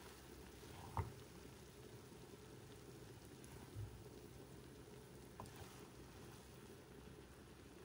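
Quiet room tone with a low hum while a wooden spoon fluffs cooked rice in a pot. The spoon knocks once sharply against the pot about a second in, then gives a softer bump and a faint tap later.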